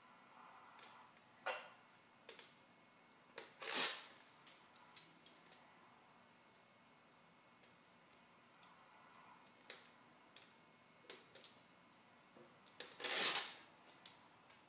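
Handling noises from working with the double-sided 3M tape on a plastic diffuser: scattered light clicks and taps, with two short, louder rasping swishes, one about four seconds in and one near the end.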